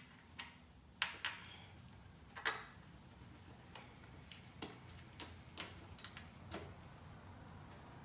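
Irregular light clicks and knocks of a green KLX110 plastic shroud being worked onto a pit bike's frame and mounts by hand, about a dozen spread unevenly, over a steady low hum.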